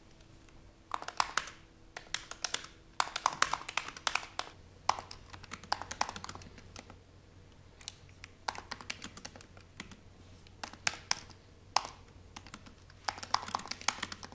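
Typing on a laptop keyboard: quick runs of key clicks in short bursts, with brief pauses between them while a chat message is written.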